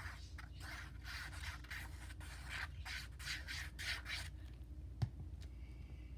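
Paper being rubbed in quick back-and-forth strokes, about three a second, stopping after about four seconds; a single sharp click follows near the end.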